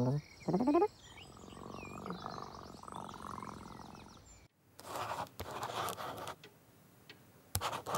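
A cartoon cat gives a short murmur as it settles, then purrs softly until the sound fades out about halfway through. After a brief silence, a pencil scratches on paper in short strokes as someone draws.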